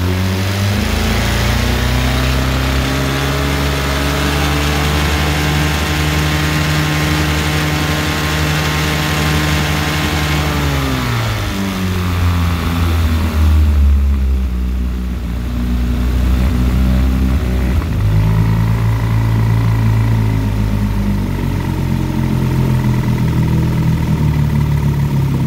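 1958 Johnson 18 hp FD-12 two-cylinder two-stroke outboard motor throttled up to high speed and held steady for about ten seconds, then throttled back down; several seconds later it picks up a little and runs at a faster idle. It is being run up to check a freshly rebuilt carburetor whose high- and low-speed needles have just been set, with the engine not yet fully warm.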